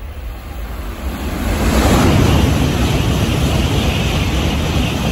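N700-series Shinkansen running through the station at speed without stopping: a rush of air and wheels on rail that builds over the first two seconds and stays loud as the long train goes past.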